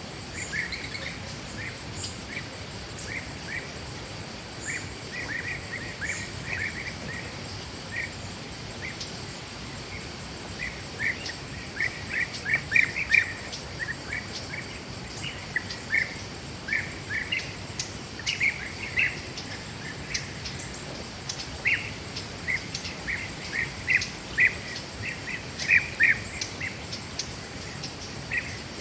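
Forest ambience: small birds chirping in quick runs of short calls, loudest about halfway through and again near the end, over a steady high-pitched insect drone.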